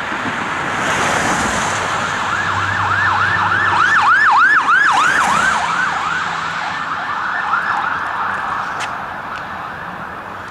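Emergency vehicle siren in a fast yelp, about three sweeps a second. It swells to its loudest about four to five seconds in and then fades, over a steady rushing noise.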